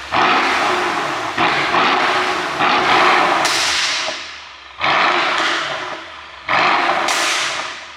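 Mercedes-AMG S63 coupe's twin-turbo V8 revved in sharp throttle blips, about five of them, each falling back with the exhaust crackling and popping from a pop-and-bang tune.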